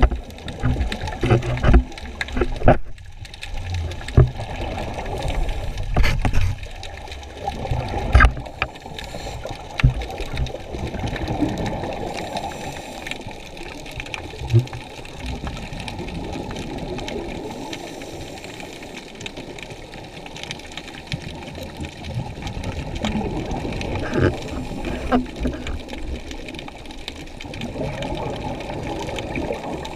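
Muffled underwater noise picked up by a camera held underwater, with irregular surges of scuba divers' exhaled regulator bubbles, busier in the first ten seconds or so.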